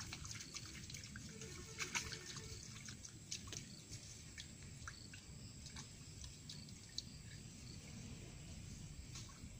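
Faint, irregular ticks and drips of water over a steady low background rumble.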